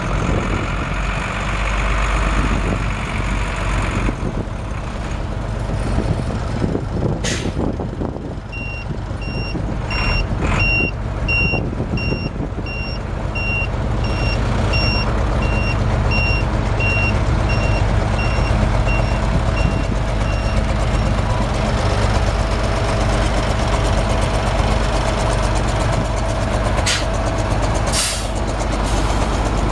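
1988 Volvo FE615 truck's 5.5-litre inline-six turbo diesel running as the truck moves. A backup alarm beeps about once a second for roughly twelve seconds, starting about a third of the way in, and a few short bursts of air hiss come through, two of them near the end.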